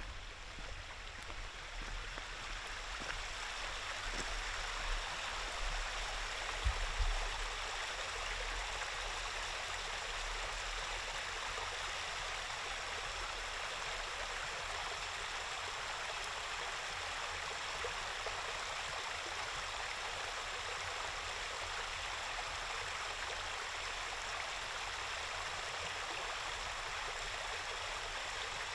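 Stream water rushing, a steady hiss of flowing water that swells over the first few seconds and then holds level. A few low thumps come about four to seven seconds in.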